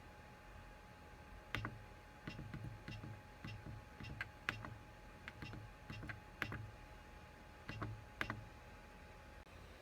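Buttons on the control panel of an XYZprinting Da Vinci 1.0A 3D printer being pressed, making about a dozen irregular clicks with a soft thud each, to start a sample print. A faint steady hum runs underneath.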